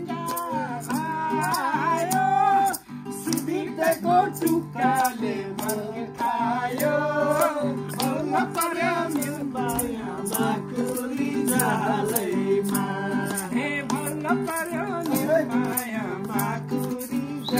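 Nepali folk song: singing over a steady percussion beat.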